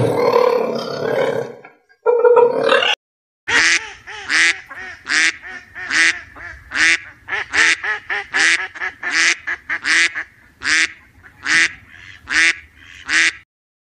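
Duck quacking in a long, even run of calls, a bit over two a second, lasting about ten seconds. In the first couple of seconds, before it starts, there is a short rough animal sound.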